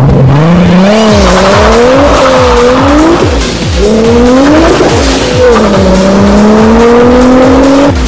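Electronic dance music with a fast, steady kick-drum beat under a gliding lead tone that rises and falls like a revving race-car engine.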